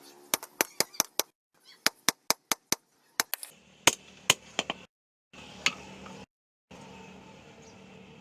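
Rapid sharp taps or knocks, about six a second, in two short runs and then a few louder single knocks, followed by a faint steady hum with one more tap; the sound cuts out abruptly several times.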